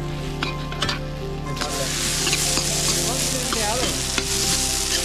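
Fried rice sizzling in a black iron kadhai while a steel ladle stirs and scrapes it, with sharp ticks of the ladle against the pan. The sizzle gets louder about a second and a half in.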